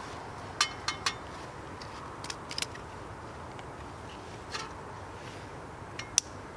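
Sharp clicks and light taps of camping kit being handled: a small folding metal gel stove set down on a rock, then a pouch and a small packet, over a steady faint hiss. Three clicks come close together about a second in, a few more midway, and two near the end.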